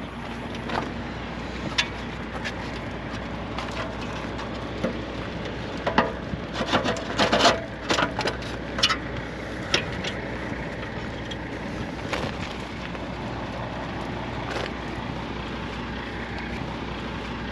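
Knocks, clicks and clatter of equipment being handled, thickest about six to nine seconds in, over a steady low hum.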